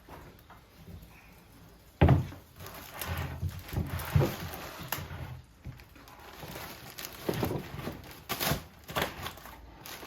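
Handling noises from a chainsaw wrapped in plastic trash bags and tape being moved about: plastic crinkling and knocks, with a sharp knock about two seconds in.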